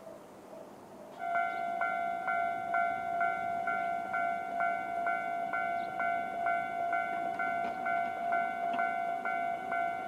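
Japanese railway level-crossing alarm starting about a second in: electronic warning bells striking about twice a second in a steady ringing pattern, signalling that a train is approaching and the barriers are about to drop.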